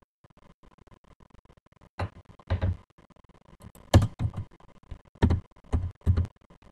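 About seven dull thumps at irregular intervals, starting about two seconds in, from computer keyboard keys being struck. A faint steady tone runs underneath.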